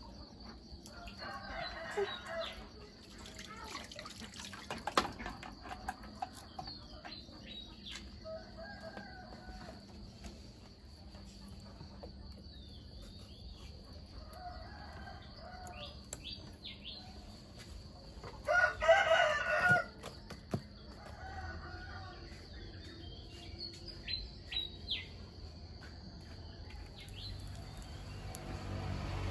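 A rooster crowing once, loudly, about two-thirds of the way through, with quieter chicken calls before and after. A steady high insect buzz and small bird chirps run underneath.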